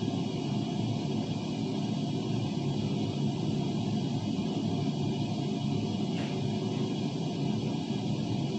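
Bathroom exhaust fan running steadily: an even rushing noise, fullest in the low range, with a faint high whine above it.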